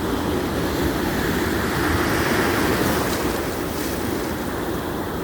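Steady rushing noise that swells slightly about two seconds in.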